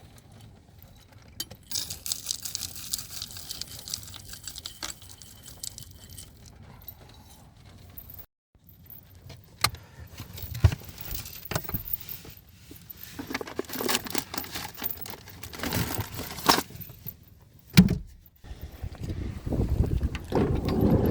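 Jingling, clinking and rustling of small objects being handled, like keys and gear being packed away, with scattered knocks. A sharp knock comes near the end, followed by a louder low rumble.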